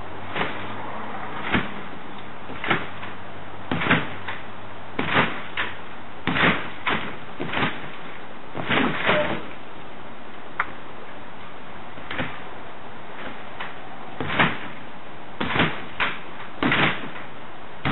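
Backyard trampoline being bounced on, with a thump of the mat and springs about once a second, some coming in quick pairs during flips, over a steady hiss of rain.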